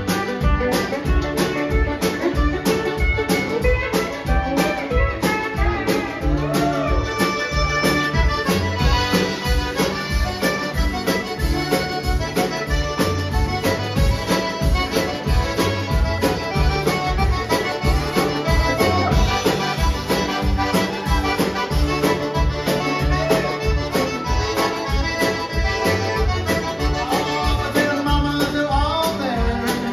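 Live country band playing an instrumental break with a Cajun accordion taking the lead. Fiddles, acoustic guitar, pedal steel, upright bass and drums play under it, the drums keeping a steady beat.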